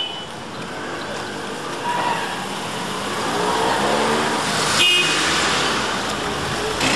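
Busy street traffic noise with a short car horn toot about five seconds in.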